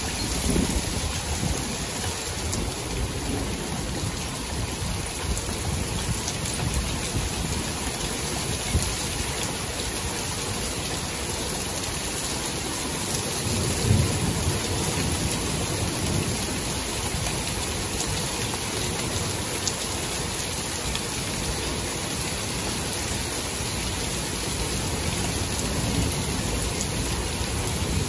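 Thunderstorm: steady rain with rumbles of thunder now and then, the loudest about halfway through.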